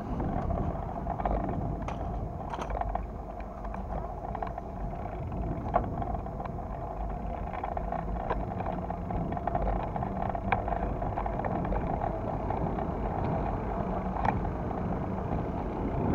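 Steady rumble of wind on the microphone and rolling noise from a moving ride over paving, with scattered light clicks and rattles.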